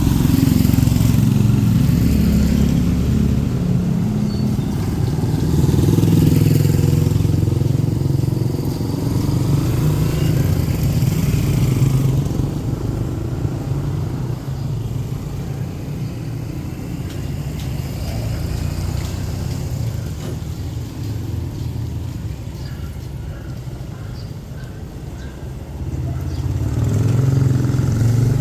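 Street traffic: motor vehicle and motorcycle engines passing close by, swelling and fading, loudest through the first twelve seconds or so, quieter in the middle, and rising again near the end.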